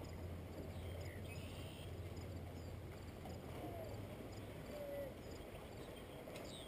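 Faint outdoor ambience: a steady low hum that weakens about two-thirds of the way through, with a few faint, short chirps.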